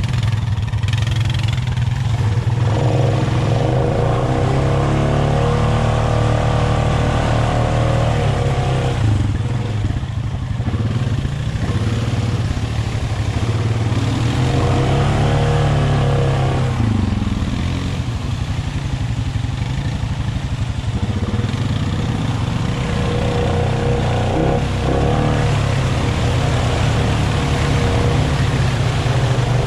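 ATV engine running steadily in deep mud, revved up three times in spells of a few seconds.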